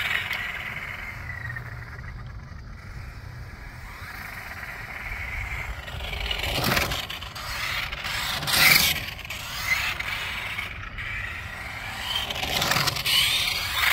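An RC toy tow truck driving on sport-court tiles: electric motor whine and tyre scrape that swell three times as it passes close, about halfway in, a couple of seconds later, and near the end.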